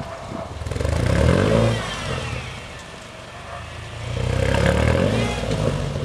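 Naturally aspirated Subaru engine revved twice in rising swells, about a second in and again after about four seconds, dropping back toward idle in between while the car is eased forward at low speed.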